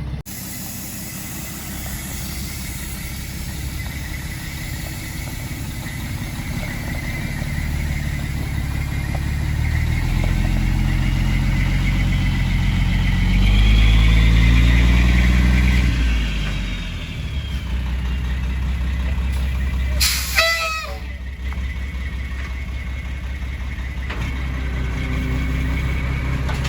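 Heavy truck engine running, revving up to a loud peak midway and then dropping back. About two-thirds of the way through comes one short, sharp hiss with a squeal.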